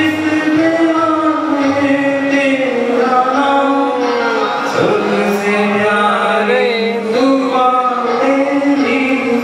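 A man singing into a handheld microphone, drawing out long held notes that slide between pitches, with a quick ornamental run about six and a half seconds in.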